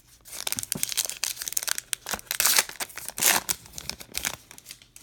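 Crimped wrapper of a 2019 Topps Allen & Ginter baseball card pack being torn open and crinkling as the cards are pulled out, in a run of crackles that is loudest a little past the middle.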